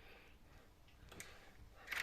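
Near silence: room tone in a pause of the voice-over, with a faint click about a second in and a brief, louder click or breath noise just before the end.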